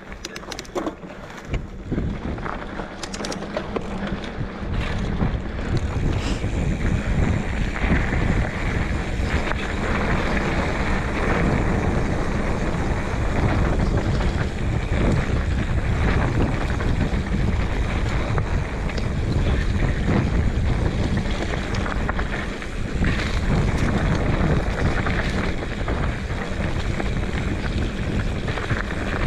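Wind rushing over the microphone of a moving camera, with a few scattered clicks in the first seconds. The noise builds over about six seconds as speed picks up, then holds steady and loud.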